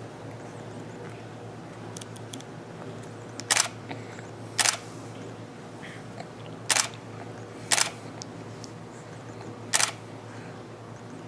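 Camera shutter firing five times, single sharp clicks a second or two apart, over a faint steady hum.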